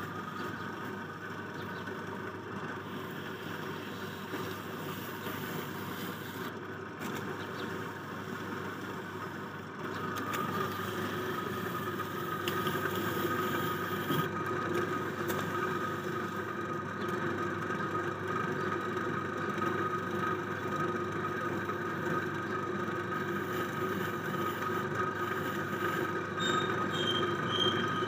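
Steady hum of a motor-driven potter's wheel spinning, turning a little louder about ten seconds in.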